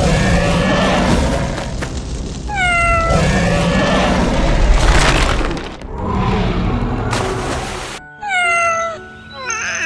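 Cat meowing, each call falling in pitch, over music and loud rough noise. The sound changes abruptly about eight seconds in to quieter, cleaner meows.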